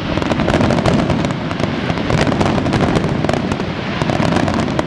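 Dense barrage of aerial firework bursts in a fireworks finale: many bangs and pops overlapping in quick succession with no break between them.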